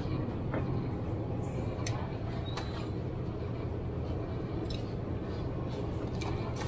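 Grocery store ambience: a steady low hum with scattered light clicks and knocks.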